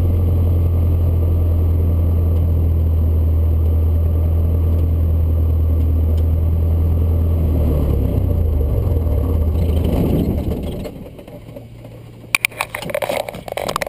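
Cessna's piston engine droning steadily in the cabin, then dropping in pitch and winding down to a stop about ten seconds in, as at shutdown. A few sharp clicks follow near the end.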